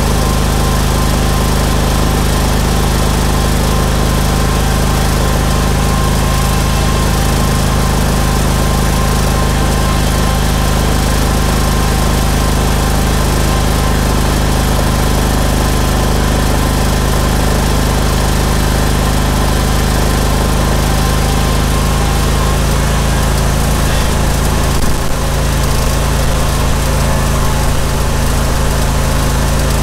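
Steel Green sprayer's Briggs & Stratton Vanguard 21 hp V-twin engine running at a steady speed, with a short low bump about 25 seconds in.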